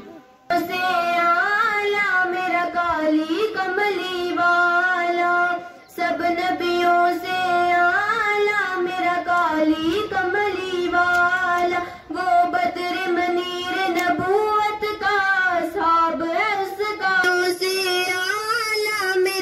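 A girl's solo voice singing into a microphone in long melodic phrases with held, wavering notes, pausing briefly about six and twelve seconds in.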